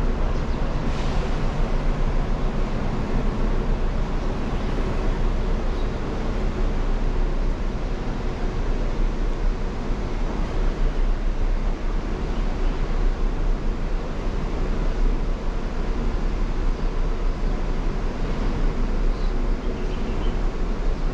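Loud, steady rushing noise with a heavy low rumble that flickers in level throughout; no distinct events stand out.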